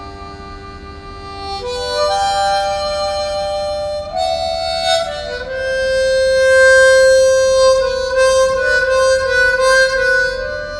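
Solo harmonica playing a slow, mournful melody of long held single notes. Near the middle it holds its loudest note, then turns to a fluttering, wavering passage toward the end.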